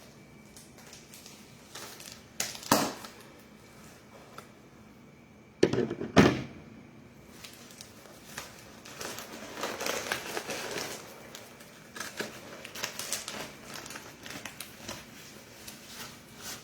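Handling and opening a delivered package: a couple of sharp knocks about three and six seconds in, then crinkling and rustling of packaging with scattered small clicks.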